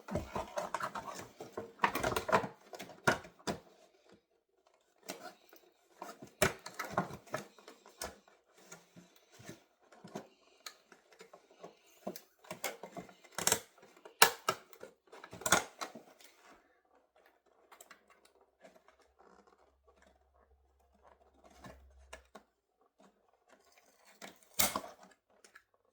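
Plastic doll packaging and a toy accessory being handled and pried loose: irregular sharp clicks, taps and rustling in scattered bursts.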